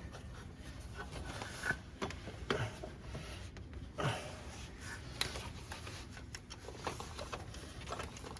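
Light rubbing and a few scattered clicks and knocks as a new rubber accessory drive belt is worked by hand around the engine's pulleys.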